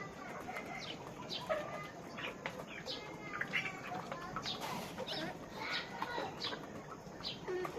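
A flock of farm chickens clucking, with many short overlapping calls.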